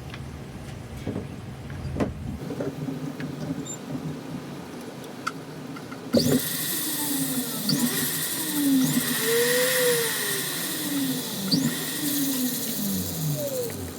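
A few light handling clicks, then about six seconds in a small electric rotary drill starts up and runs, its motor pitch rising and falling, while it drills a hole in the metal hoop for an ear post.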